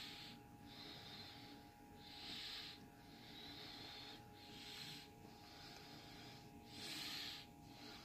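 A person breathing through the nose close to the microphone, each breath in or out a faint hiss about a second long in an even rhythm. A faint steady hum sits underneath.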